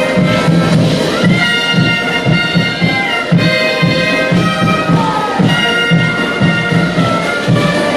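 Carnival band music: wind instruments playing a melody of held notes over a steady drumbeat.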